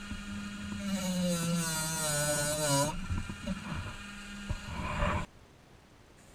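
Handheld rotary tool with a felt polishing wheel running against a small part, its high whine wavering and sagging in pitch over a low motor hum. The sound cuts off about five seconds in, leaving only a faint background.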